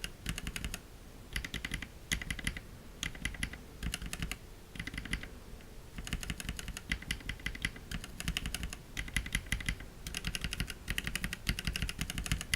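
Typing on a POM Kayak mechanical keyboard with POM (acetal) keycaps. The keystrokes come in quick runs of clicks separated by short pauses.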